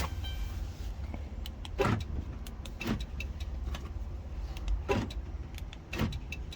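Car power door locks actuating as newly programmed key fob remotes are tested: four sharp clunks in two pairs, each pair about a second apart, with faint small clicks between, over a steady low hum.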